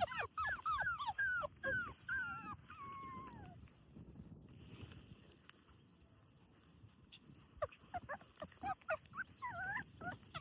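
Five-week-old British Labrador puppies whining: a quick run of short, falling whimpers over the first few seconds, a lull, then more whimpers from about seven seconds in.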